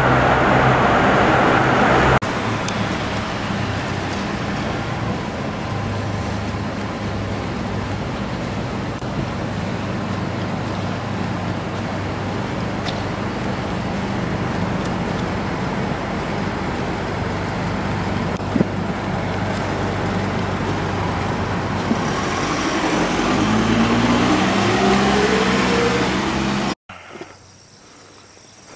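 Road traffic inside a road tunnel: cars and a truck passing with a steady mix of engine hum and tyre noise. Near the end one engine's pitch climbs. The noise then cuts off abruptly to a much quieter outdoor background.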